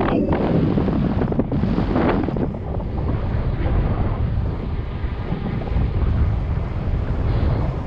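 Wind buffeting the GoPro microphone while riding a mountain bike on a trail, with steady low rumble from tyres and bike and a few brief rattly surges near the start and about two seconds in.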